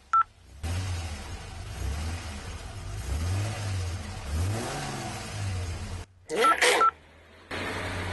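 A single phone keypad beep, then a car engine running and revving, its pitch rising and falling. Around six seconds in the engine cuts off abruptly for a loud, brief burst of phone beeps and clicks, and then the engine sound resumes.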